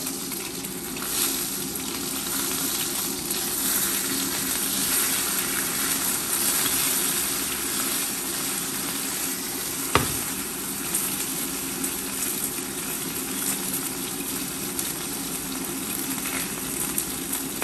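Chicken pieces frying in hot oil in a pan on high heat, a steady sizzle, with one sharp knock about ten seconds in.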